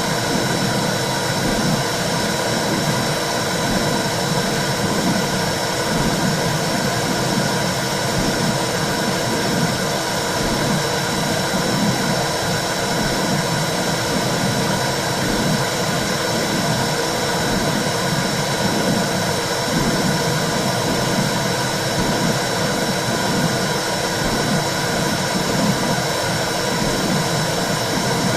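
Womb sound for soothing a baby: a steady low whooshing noise, like blood flowing in the womb, with a repeating pulse running through it.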